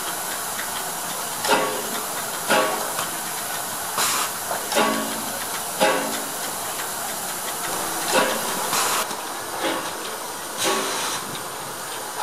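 USATC S160 2-8-0 steam locomotive standing in steam, hissing steadily, with short louder bursts about once a second at uneven intervals.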